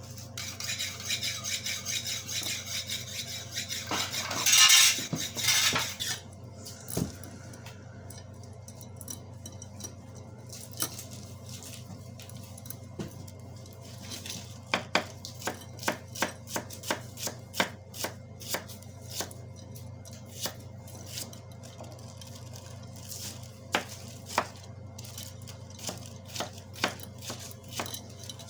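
Irregular sharp clicks and knocks, like hard objects being handled and set down, over a steady low hum. A loud hissing rush fills roughly the first six seconds.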